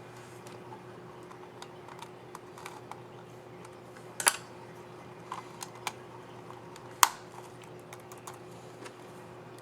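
Laptop scissor-switch keys clicking as they are pressed: irregular light taps, with two louder clicks about four and seven seconds in.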